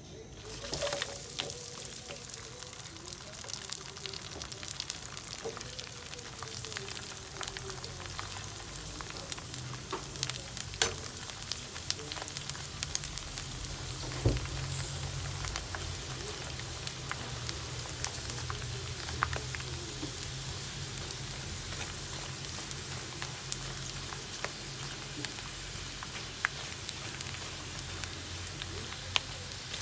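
Pork chicharon (pork rinds) deep-frying in hot oil: a steady sizzle with many sharp crackles and pops. It starts suddenly just after the beginning, and the loudest pop comes about halfway through.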